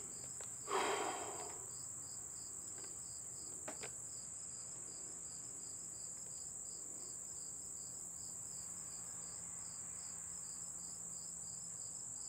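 Insects chirping: a steady high-pitched trill with a regular pulsing chirp a few times a second beneath it. A faint rustle about a second in and a light click near four seconds.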